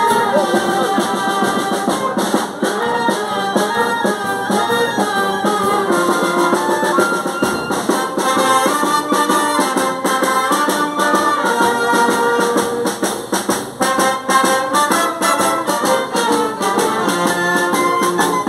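Southern Italian street band playing a lively tune while walking: clarinet and brass carry the melody over steady drum beats.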